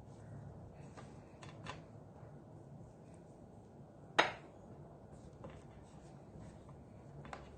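Faint handling sounds of chicken pieces being dredged in a flour mixture in a bowl, with a few small taps and one sharp clink of a dish about four seconds in.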